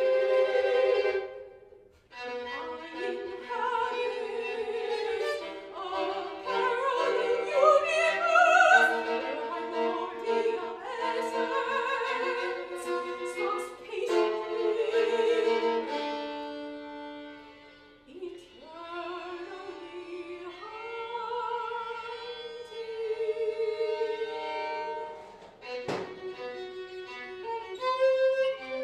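Violin and operatic soprano voice performing a contemporary classical piece, with sliding, gliding pitches and a short break about two seconds in. A single sharp tap sounds about three seconds before the end.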